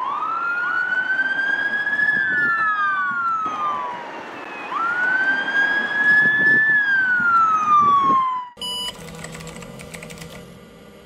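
A siren wailing twice, each wail rising slowly in pitch and then falling back. It cuts off about eight and a half seconds in and gives way to a short electronic tone and a faint steady hum.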